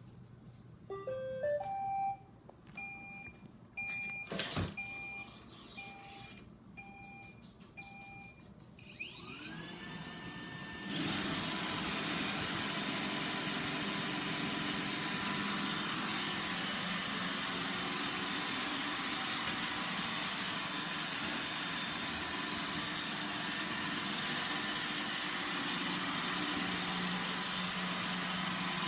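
iRobot Roomba 960 robot vacuum starting up: a quick rising run of electronic tones, then a string of evenly spaced beeps, about one and a half a second, with a sharp click among them. After about ten seconds its motors whir up and it runs steadily.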